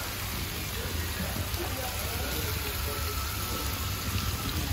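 Clay tagines cooking over charcoal braziers: a steady sizzle and hiss, with indistinct voices behind it.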